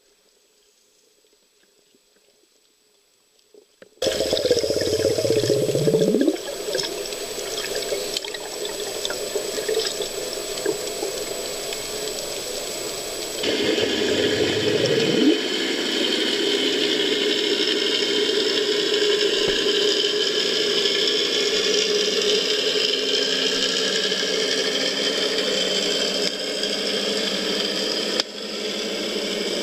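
Rushing water noise that starts suddenly about four seconds in after near silence. It opens with a falling sweep, and a second falling sweep comes about ten seconds later.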